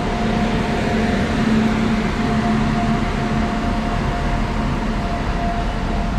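Indian Railways WAG-9 electric locomotive moving past at close range, shunting a rake of coaches. Its steady hum, with two held tones, runs over the noise of wheels on rail.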